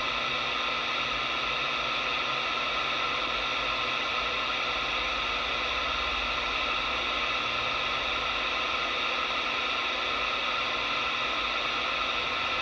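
Galaxy 979 CB radio's receiver putting out steady static hiss through its speaker on an open channel, with no signal coming in.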